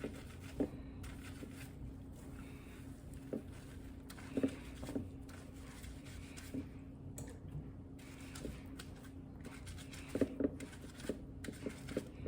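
Soft brushing and handling of a wet, shampooed wig, with scattered light clicks and taps over a steady low hum.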